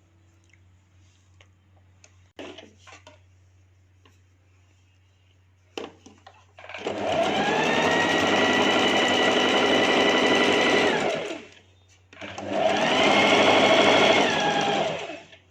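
Electric sewing machine stitching a strip of thread-filled piping. After a few light handling clicks it speeds up and runs steadily for about five seconds, slows to a stop, then runs again for about three seconds. A low steady hum lies under it throughout.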